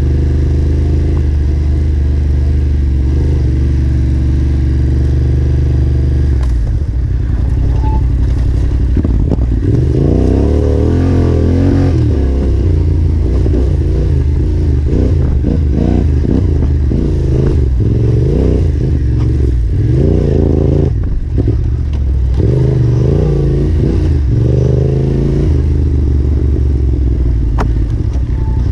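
Yamaha Ténéré 700's parallel-twin engine under way off-road: it runs steadily at low revs at first, then from about six seconds in revs up and down again and again as the throttle is worked. Short clattering knocks come through along with it.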